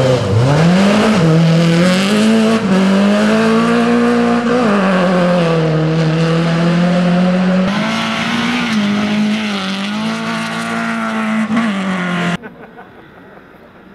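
Renault Clio rally car's engine revving hard on a gravel stage, its pitch climbing and dropping again and again with gear changes and lifts. The engine sound cuts off abruptly about twelve seconds in, leaving a much quieter background.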